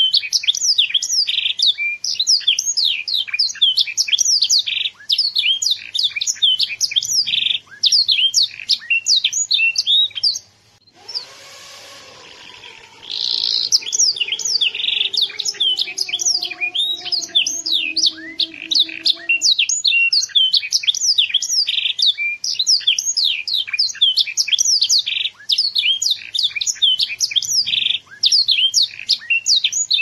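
Young domestic canary singing a loud, continuous song of rapid high trills and fast repeated notes, with a brief pause about eleven seconds in.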